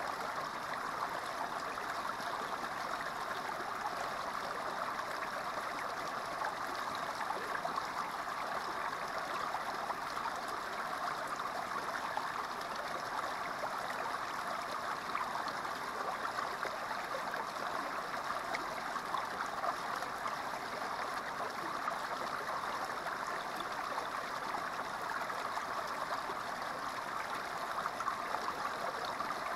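Small creek water spilling steadily through a narrow rock chute into a shallow pool, an even splashing rush of running water that neither swells nor breaks off.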